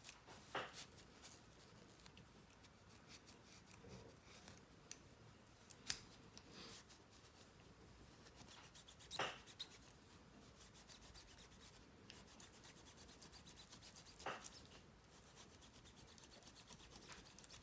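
Faint rubbing of a polishing cloth over a metal replica sonic screwdriver, with a few light clicks as the prop is handled.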